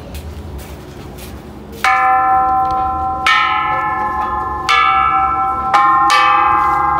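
Hanging metal Thai temple bells struck one after another with a wooden pole striker, each blow leaving a long ringing chord of several tones. About five strikes, starting about two seconds in, the ringing overlapping so the sound builds.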